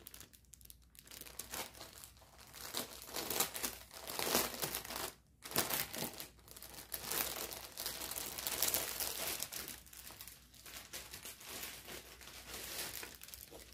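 Clear plastic packaging of a cross-stitch kit crinkling and rustling as it is handled and opened by hand, with a brief pause about five seconds in.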